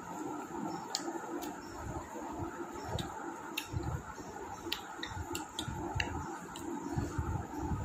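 Eating sounds: scattered small clicks and ticks of chewing and mouth noises, about a dozen, over a steady low hum.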